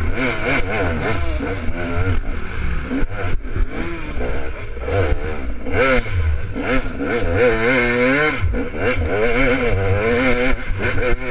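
Dirt bike engine revving up and down over and over as the throttle is worked, with rumbling wind buffeting and the odd knock and rattle over bumps.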